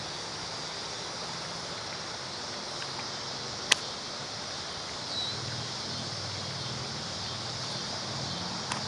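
A whip cracking once, about a third of the way in: a single sharp, very short crack from a Victorian cutback throw. A fainter snap follows near the end, over steady outdoor background noise.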